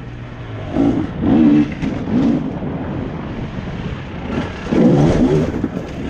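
Enduro dirt bike engine revving in short throttle bursts, pitch rising and falling, with lower running between the bursts.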